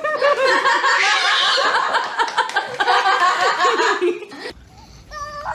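People laughing loudly in short repeated bursts, which cut off abruptly about four and a half seconds in.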